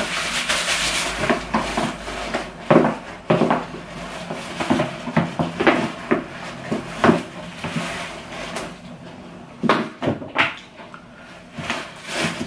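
Tissue paper rustling as a small wrapped item is unwrapped by hand, thickest in the first couple of seconds, followed by scattered light knocks and taps of packaging and objects being handled.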